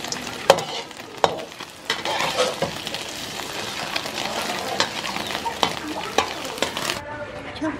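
Pork-and-egg omelette sizzling in oil in a steel wok, with a metal spatula scraping and clinking against the wok several times. The sizzle cuts off suddenly near the end.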